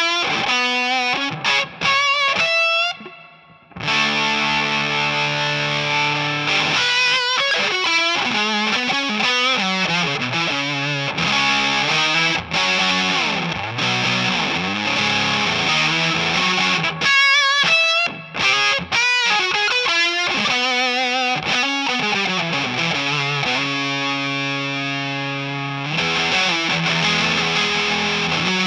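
Electric guitar through the O.C.E. Hammer, a Big Muff-style heavy fuzz pedal, with thick distortion. It starts with single notes with wavering, bent pitch, drops away briefly about three seconds in, then rings out in long sustained fuzz chords and riffs.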